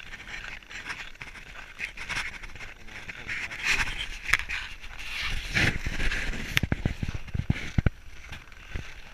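Footsteps crunching and scraping on hard-packed snow in deep cold, in an uneven walking rhythm. A few short low thumps come about two-thirds of the way through.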